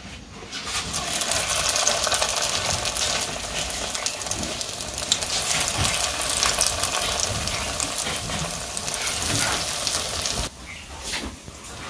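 Small moringa-leaf and lentil-paste fritters (sojna patar bora) frying in hot oil in a kadai: a steady sizzling hiss full of fine crackles, which drops off abruptly near the end.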